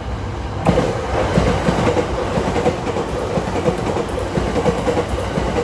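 JR East E353 series limited express passing through the station on the adjacent track: its wheels clatter over the rail joints in a fast, even rhythm, with a steady hum under the clatter. The noise jumps up sharply less than a second in as the front of the train reaches the microphone.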